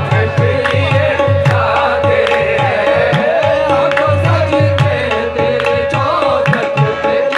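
Sufi devotional song: a voice singing over a steady hand-drum rhythm and a long held note.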